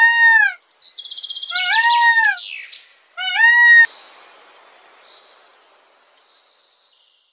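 Green peafowl calling: three loud, drawn-out calls, each rising and then falling in pitch. A rapid rattling comes between the first and second call.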